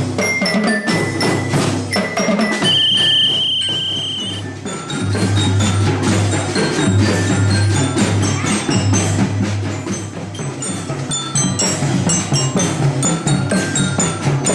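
A school marching band playing, with glockenspiel notes ringing out over drums. A single high held tone sounds for about a second and a half a few seconds in.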